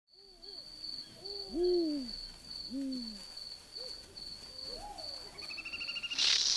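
Night savanna sounds: an insect chirping steadily in a high, pulsed rhythm, with several short low hooting calls, each rising and then falling in pitch. Near the end comes a sudden loud rasping rattle, the crested porcupine shaking its raised quills in defence.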